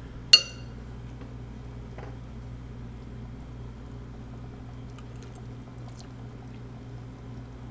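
Pot of thick barbecue sauce simmering, faint bubbling over a steady low hum. One sharp metallic click about half a second in, with a few faint ticks later.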